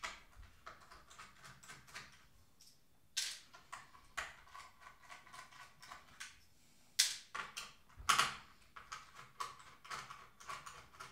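Small screwdriver working screws out of the plastic rear housing of a Bang & Olufsen Beolink 7000 remote control: an irregular run of light clicks and scrapes, with a few sharper clicks about three, four, seven and eight seconds in.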